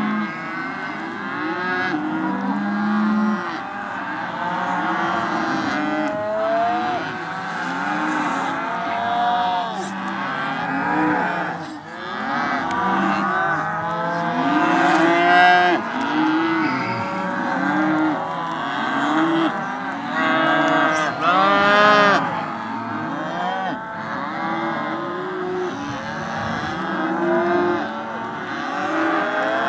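A herd of Hereford calves at weaning bawling together, many overlapping calls without a break. A few louder, higher-pitched calls stand out around the middle.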